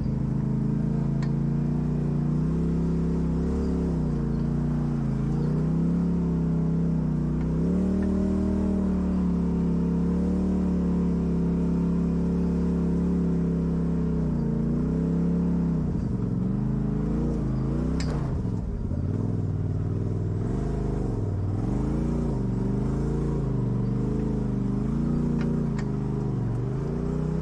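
Off-road vehicle engine running under changing throttle, its pitch rising and falling again and again as it works over the trail, with a single sharp knock about two-thirds of the way through.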